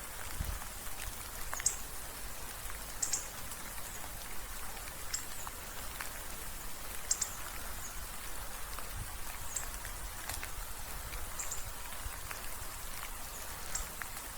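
Light rain falling steadily with an even hiss, with separate drops ticking sharply every second or two.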